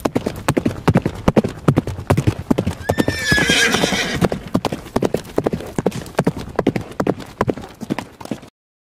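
Horse hooves clip-clopping, with a horse whinnying about three seconds in; the sound cuts off suddenly near the end.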